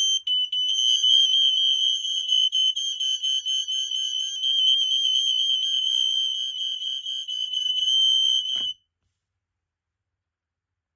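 Smoke alarms on an interconnected demo board sounding together in test mode, set off from the Kidde i12080A's test button: a loud, high-pitched piezo shriek held almost without a break. It cuts off suddenly about nine seconds in.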